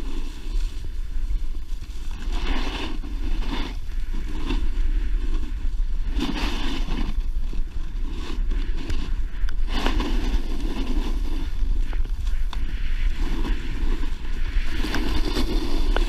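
Wind buffeting a GoPro action camera's microphone as a snowboard runs downhill, with the board's edge scraping over packed snow in repeated, uneven surges.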